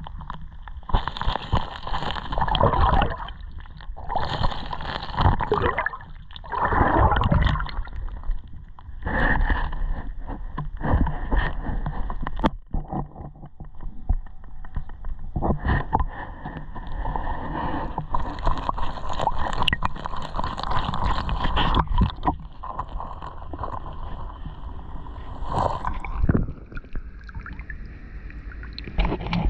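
Creek water sloshing and gurgling in irregular surges, each a second or two long.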